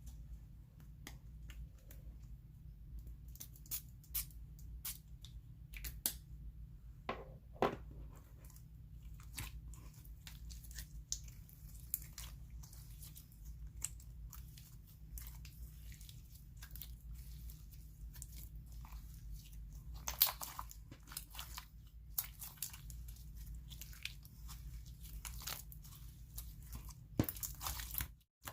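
Hands stretching, folding and squishing a thick clear-base metallic slime, giving scattered small bubble pops and sticky clicks throughout.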